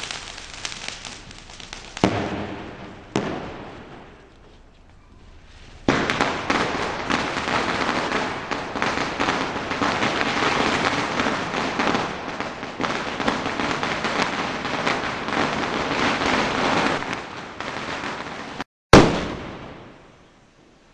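Firecrackers going off: two sharp bangs in the first few seconds, then a dense, continuous crackling and fizzing that starts suddenly and runs for about twelve seconds, and a loud bang near the end that dies away.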